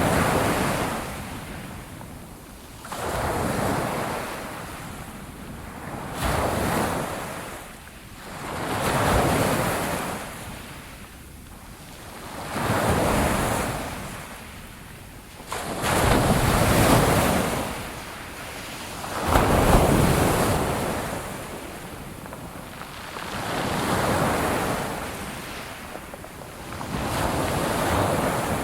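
Ocean waves breaking on the shore in a slow rhythm, each wash of surf swelling and fading every few seconds.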